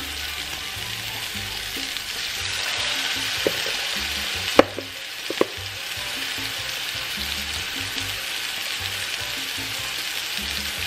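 Ground-turkey patties sizzling in hot vegetable oil in a non-stick frying pan, the sizzle growing louder about two seconds in as another raw patty is laid into the oil. Three sharp clicks come near the middle.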